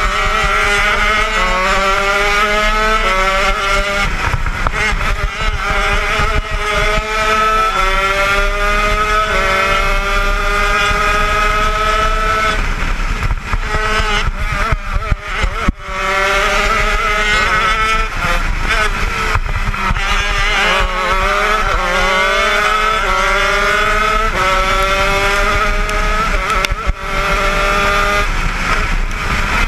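80cc two-stroke shifter kart engine at racing speed, revving hard up through the gears: the pitch climbs and drops back at each upshift, with a short lift off the throttle about halfway through.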